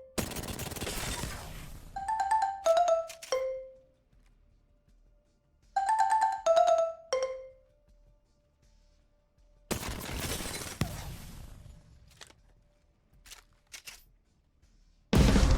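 Stock sound effects: a short descending three-note electronic chime, heard three times, alternating with bursts of noise that die away over a second or two and a few short clicks. Music with a beat starts near the end.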